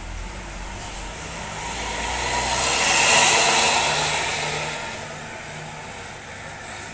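Intercity coach with an Adiputro Jetbus2 body driving past close by: its engine hum gives way to engine and tyre noise that swells to a peak about three seconds in, then fades as it pulls away.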